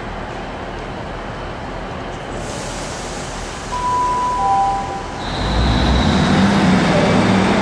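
Class 323 electric train running, growing louder from about five seconds in with a deep rumble and a steady high whine; a brief two-note tone sounds about four seconds in.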